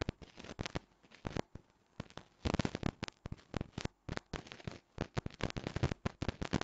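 Computer keyboard being typed on: a string of sharp key clicks, with dense quick runs about two and a half seconds in and again near the end.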